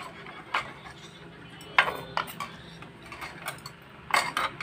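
Chopsticks and a spoon clinking against bowls while eating noodle soup: several separate sharp clinks, the loudest about two seconds in and two more close together near the end.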